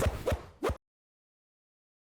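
A short sound effect clip: a dense burst with two quick hits, cut off abruptly under a second in, followed by dead digital silence.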